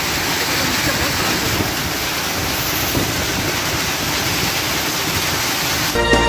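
Heavy rain mixed with hail pouring down onto trees and ground, a steady dense hiss. Music cuts in suddenly near the end.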